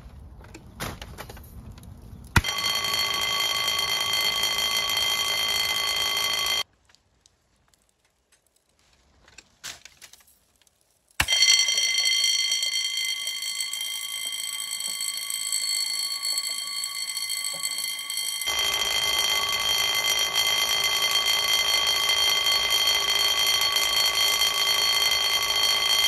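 Electric fire sprinkler alarm bell ringing continuously and loudly, set off by water flow from a sprinkler head that has just activated. It starts about two seconds in, drops out for about four seconds midway, then rings on, with a hiss of spraying water under it later on.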